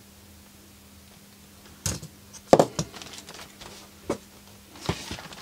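Handling noise: a few separate knocks and rustles, the loudest about two and a half seconds in, as the thermostat's circuit board and its wires are picked up, turned over and set down on a workbench.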